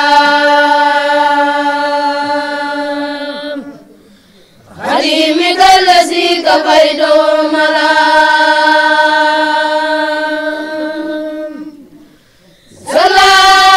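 Children's voices chanting Arabic religious verse together in long, drawn-out held notes: two long phrases with a short break for breath after about four seconds, and a third phrase starting near the end.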